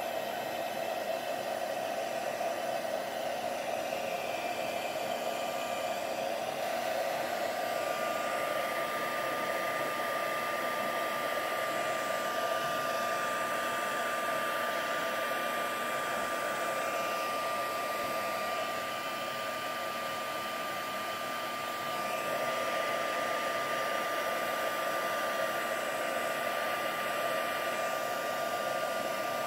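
Embossing heat gun blowing steadily over a wet watercolour card to dry it: a rushing air sound with a steady high whine, dipping slightly for a couple of seconds about two-thirds through.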